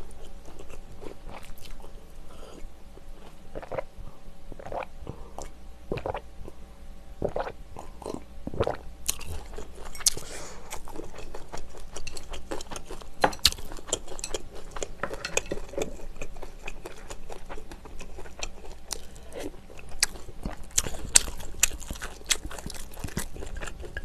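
A person chewing and crunching food close to the microphone, with many short irregular mouth clicks throughout.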